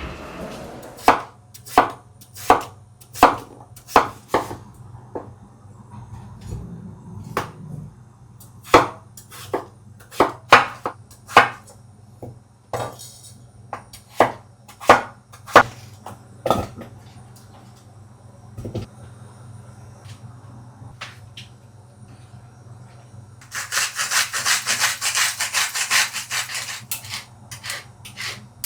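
Kitchen knife chopping food on a wooden cutting board: single cuts about every half second to a second, then a few seconds of fast, rapid chopping near the end.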